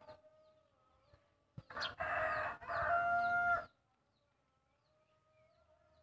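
A rooster crowing once, loudly, for about two seconds starting around a second and a half in, ending on a long held note.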